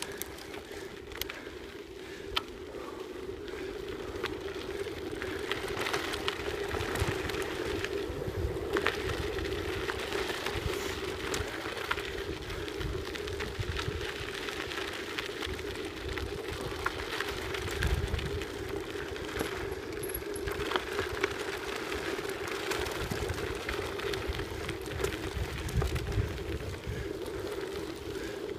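Mountain bike tyres rolling fast over a gravel forest track: a steady tyre hum with crunching grit, and wind rumbling on the microphone that swells and dips.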